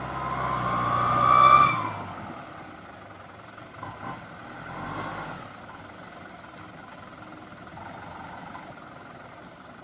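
Hino Dutro light truck's diesel engine revving hard under load as it struggles up a slippery climb. It rises to a peak about a second and a half in, then drops off to a lower steady running.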